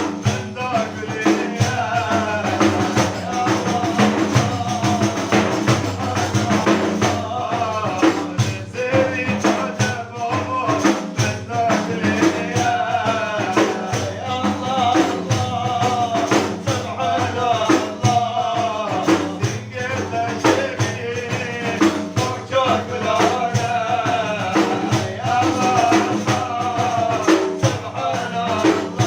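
Male voice singing a Kurdish religious praise song (madih) over a steady beat on a frame drum with jingles.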